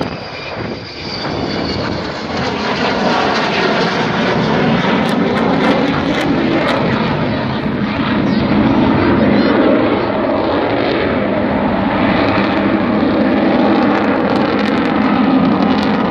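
Jet noise from an Avro Vulcan's four Olympus turbojet engines as the bomber flies past and climbs steeply away. The noise grows over the first few seconds, then stays loud and steady.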